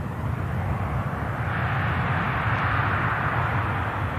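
Airliner engines running at high power on the runway, a rushing roar that swells to a peak about two to three seconds in and then eases off, with wind rumbling on the microphone.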